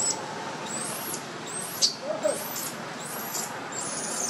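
Newborn macaque crying: about five shrill, very high-pitched squeals in quick succession, each under half a second. It is the distress cry of a baby wanting its mother.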